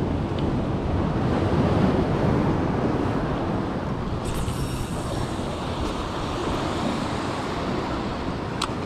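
Sea waves washing against the jetty's rocks, mixed with wind buffeting the microphone, swelling about two seconds in. A single sharp click comes near the end.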